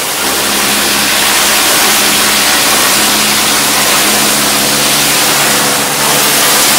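Kärcher electric pressure washer running: the pump motor hums steadily under the loud hiss of the high-pressure jet spraying the parasol's fabric canopy, easing for a moment about six seconds in.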